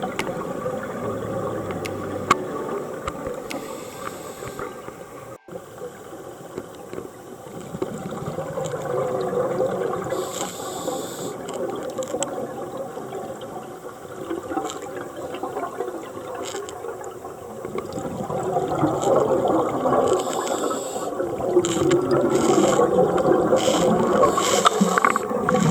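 Muffled underwater water noise with bubbling and gurgling, as from scuba divers' exhaled bubbles; short hissing bursts come about ten seconds in and again several times in the last few seconds, as the sound grows louder.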